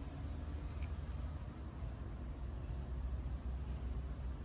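Steady, unbroken high-pitched insect chorus over a low steady rumble.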